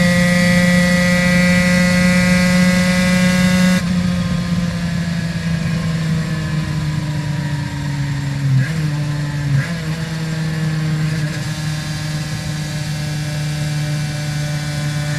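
Aprilia RS 250's two-stroke V-twin with Arrow exhausts, heard onboard while riding: it holds steady high revs, then the throttle closes about four seconds in and the engine note sinks slowly as the bike slows, with two brief changes in pitch a few seconds later.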